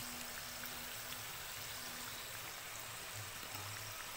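Marinated, flour-coated chicken pieces deep-frying in hot oil: a steady sizzle with a few faint crackles.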